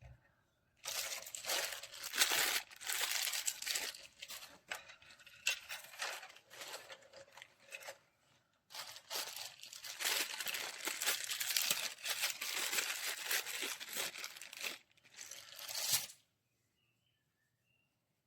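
Irregular crinkling and tearing sounds in dense bursts, pausing briefly about eight seconds in and stopping about sixteen seconds in.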